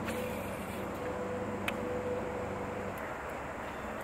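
A steady low motor drone with a faint steady whine above it, fading out about three seconds in, and a single sharp click about halfway through.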